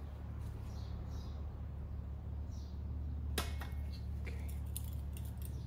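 Light metal clicks and taps as a cylinder head and its hardware are handled on an air-cooled VW engine, with one sharp click about three and a half seconds in, over a steady low hum.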